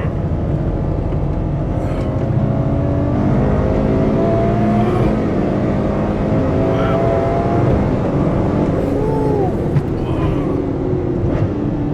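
Ferrari 812 Superfast's 6.5-litre V12 engine heard from inside the cabin under hard acceleration, its pitch climbing through the revs for several seconds, with a quick rise-and-fall swoop in pitch about nine seconds in.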